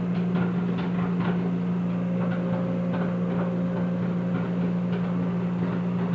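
A steady motor hum with scattered light clicks and knocks.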